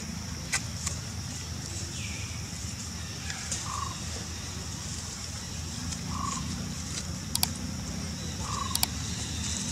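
Short animal calls falling in pitch, repeating about every two and a half seconds, over a steady high drone, with a few sharp clicks.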